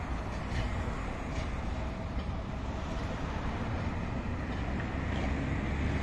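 Articulated tram running past with a steady low rumble, its wheels giving a few faint clicks over the rail joints.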